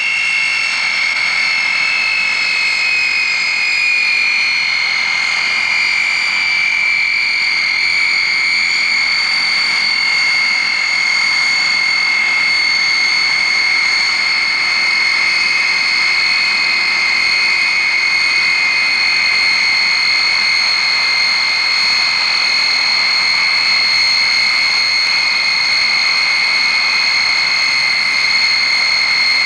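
Vickers Viscount's Rolls-Royce Dart turboprop engines running as the airliner taxis, giving a loud, steady high-pitched whine. The pitch eases down slightly over the first several seconds, then holds.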